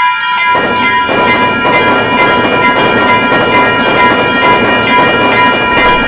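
Railroad crossing warning bell ringing in a quick repeating ding, about two to three strikes a second. A train passes from about half a second in, its running noise filling in under the bell.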